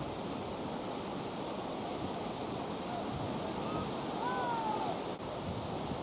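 Steady rushing of a waterfall and its stream, with a few faint, short rising-and-falling calls about four seconds in.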